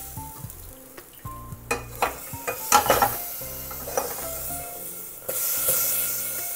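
Salt water sprinkled by hand onto the hot inner walls of an empty pressure cooker over a gas flame, sizzling. The metal cooker clanks and clinks several times near the middle, and a louder hiss of sizzling sets in suddenly about five seconds in.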